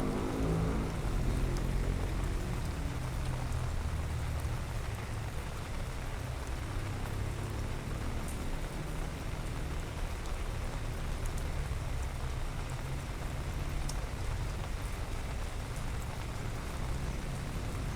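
Steady rain falling: an even hiss with occasional faint drip ticks, over a constant low rumble.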